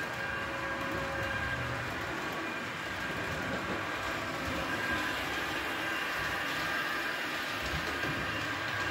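Model trains running on the layout's track: a steady mechanical running noise with a thin high whine through it.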